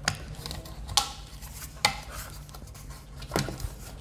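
Sharp clicks and light metallic knocks from a stainless steel Instant Pot lid as the silicone sealing ring is pressed back into the rim, four clicks spread unevenly through the handling.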